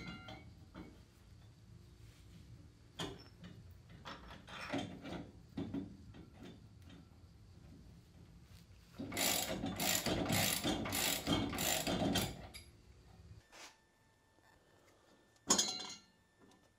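Hand ratchet clicking while a rear shock absorber mounting bolt is worked on, with scattered clicks at first and a fast run of ratcheting in the middle. A single sharp knock comes near the end.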